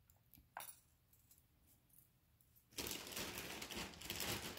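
Jewelry being handled: a light click about half a second in as the silver snake-chain necklace is set down. Then, from about three seconds in, packaging rustles and crinkles.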